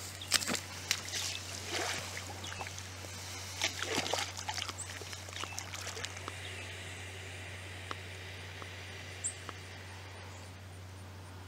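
American alligator scrambling off the grassy bank and splashing into a pond: a run of sharp rustles and splashes over the first few seconds, then faint water sounds as it settles.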